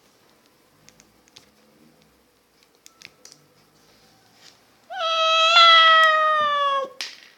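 A few faint plastic clicks of toy pieces being handled, then one long, drawn-out meow of about two seconds that slowly sinks in pitch, cut off by a click.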